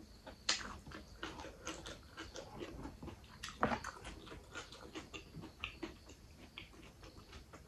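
Close-miked chewing of a mouthful of rice, with wet mouth smacks and short clicks scattered throughout; the loudest smacks come about half a second and three and a half seconds in. Fingers mixing rice with egg on a metal tray add soft squishing.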